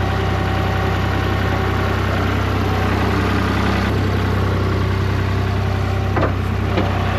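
Old skid steer's engine idling steadily, with a couple of brief clicks near the end.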